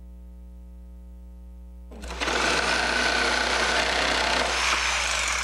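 A steady electrical hum, then about two seconds in a power tool starts running loudly and steadily at a bench.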